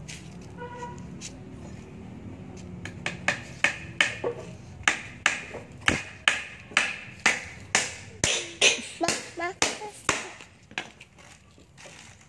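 Hammer nailing the boards of a small wooden stool: a steady run of sharp strikes, about two to three a second, starting a few seconds in and stopping shortly before the end.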